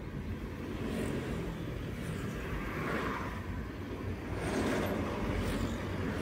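Steady road and engine noise inside a moving Daihatsu Terios, a low rumble of tyres on a concrete highway. It grows louder about four seconds in as a Hino tanker truck passes close alongside.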